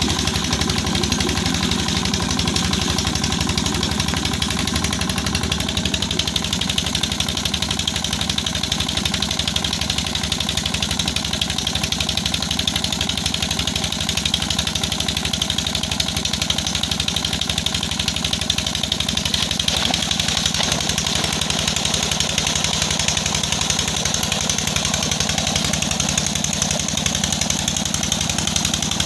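Repaired Peter diesel engine running steadily, with a fast, even chugging beat.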